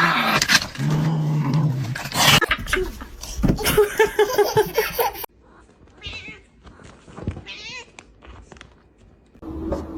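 A cat meowing and yowling, a quick run of repeated calls, then the sound cuts off abruptly about halfway through to a much quieter stretch.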